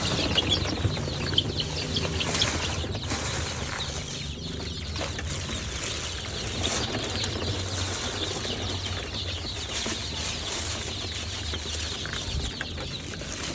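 Young KUB kampung chickens calling and clucking, mixed with the rustle of a plastic feed bag as feed concentrate is poured into a feeder tray.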